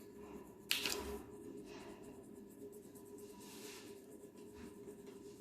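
Plastic crayon rubbing on paper in faint, repeated shading strokes, with one sharp knock just under a second in.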